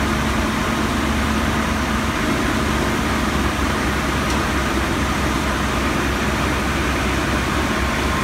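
Fire apparatus diesel engines and pumps running steadily, an even drone with a hiss over it.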